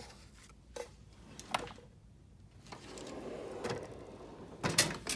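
Steel drawer of a Snap-on toolbox sliding on its runners. A few light clicks come early, then a sliding rush, and two sharp metal clunks near the end as it shuts.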